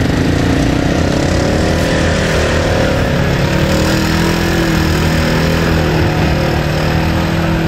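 ATV (quad bike) engine revving up in the first second or so, then holding steady high revs while a quad stuck in the mud is pulled out on a line.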